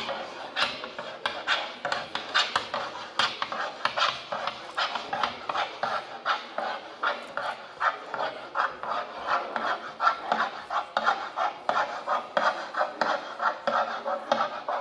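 Electronically amplified scratching and scraping of hand-held drawing tools across a long board, quick rasping strokes coming several a second from several hands at once, falling in and out of step.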